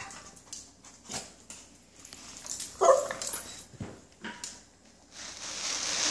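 A dog barking once about three seconds in, with a few faint clicks around it; the dog is excited and begging to be taken for a walk.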